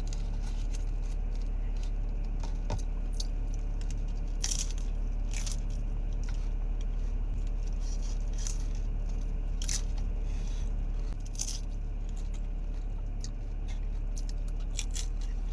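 A person biting into and chewing crunchy food, with separate crisp crunches every second or two, over a steady low hum.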